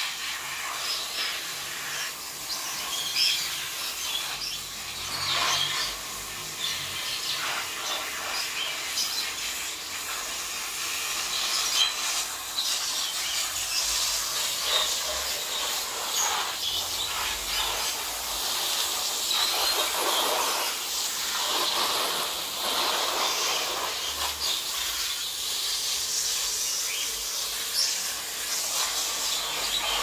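Jet of water hissing and splashing as palm fronds are washed clean for nesting material, unsteady as the spray moves over them. Small birds chirp in the background.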